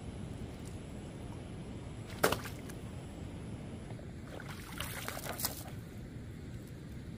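A single sharp knock about two seconds in, then a short run of lighter clicks and clatters about a second later, over a steady low rumble.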